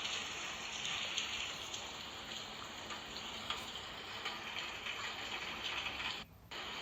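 Recorded rain falling, a steady patter with small scattered drip ticks, cutting out briefly near the end.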